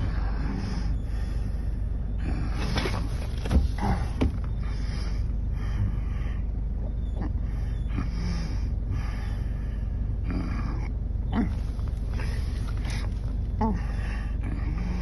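A man's heavy, laboured breathing with a few short gasping or grunting sounds, a few seconds in and near the end, during an epileptic seizure episode. Beneath it is a steady low rumble of the car cabin.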